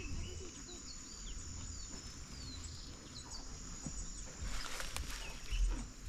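Outdoor ambience of birds chirping in short, scattered falling notes over a steady high-pitched trill, with a brief rustle of dry grass and leaves being handled about four and a half seconds in.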